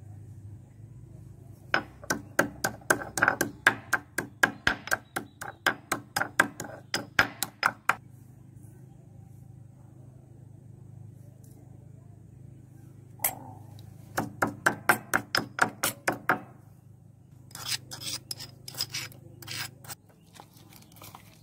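Stone pestle pounding chillies, greens and garlic in a black stone mortar: fast, even strikes about four a second in two bouts, the second shorter, then a looser run of lighter knocks near the end.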